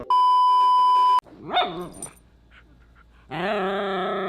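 A loud, steady electronic beep lasting about a second, cut off abruptly. Then a Pomsky dog gives a short yip, and from about three seconds in a long, wavering vocalization as she throws a fit for more food.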